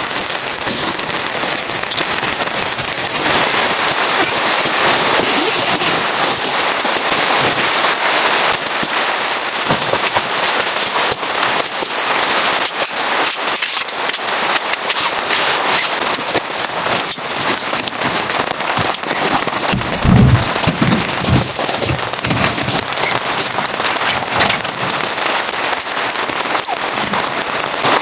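Rain pattering densely, a steady crackle of many small drops. A few low thumps about twenty seconds in.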